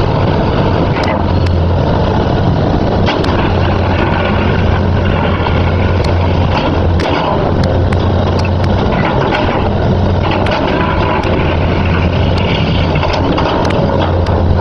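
Caterpillar tracked hydraulic excavator's diesel engine running steadily and loudly as the machine works, with a deep steady hum. Scattered sharp clanks and knocks sound over it throughout.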